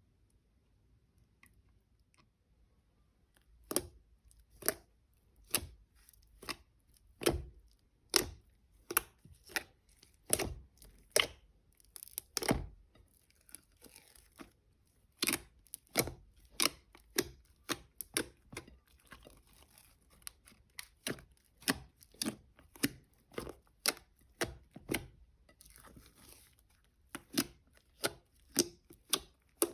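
Glossy slime being worked by hand, giving off sharp pops and clicks about one to two a second, starting a few seconds in.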